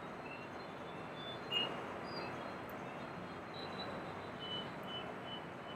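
Quiet background hiss of room tone with a few faint, short, high chirps, several of them near the end, and one small soft knock about one and a half seconds in.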